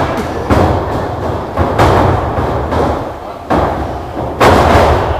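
Wrestling ring canvas and boards taking heavy impacts from bodies and feet: four loud thuds about half a second, one and a half, three and a half and four and a half seconds in, each ringing on briefly. The last and loudest is a wrestler being slammed onto the mat.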